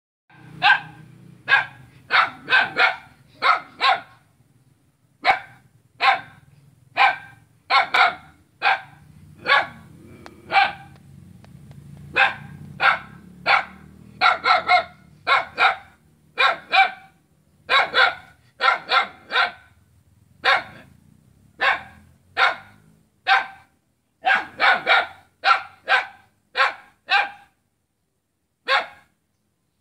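Small dog barking at a neighbour: about forty short, sharp, high-pitched barks in runs of two to five with short pauses between them.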